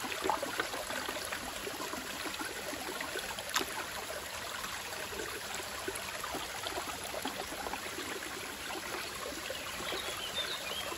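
Shallow creek water running and trickling steadily around and into a small stainless-steel sluice box. A single knock is heard about three and a half seconds in.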